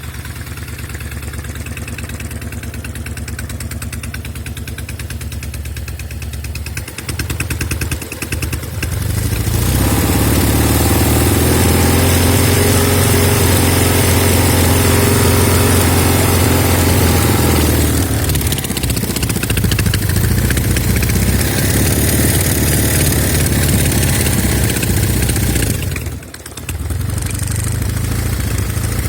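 Norton Commando parallel-twin motorcycle engine idling, then revved up at about ten seconds and held there for several seconds before easing back. It is raised again with a brief drop-out a few seconds before the end. The bike has a left-cylinder misfire, with some smoke on throttle-up, that the owner has not traced to the carbs, ignition, plugs, cables or an air leak.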